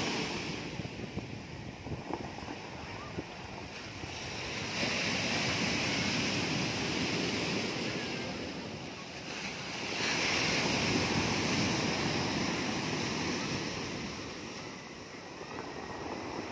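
Surf breaking on a stony beach, the wash swelling and falling back in a few long surges.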